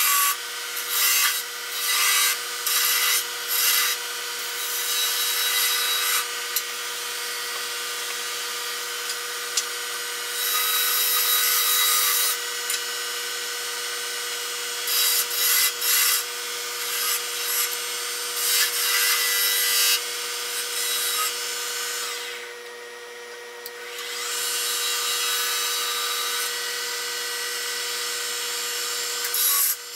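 Wood lathe running with a steady hum while a turning tool cuts a spinning cherry-wood spindle, a hissing scrape that comes and goes in short passes and longer strokes. The cutting eases off for a couple of seconds about three-quarters through, leaving mostly the motor hum.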